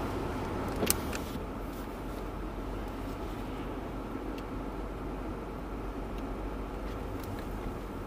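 Steady road and engine noise heard inside a moving car's cabin, with a sharp click about a second in and a few fainter ticks later.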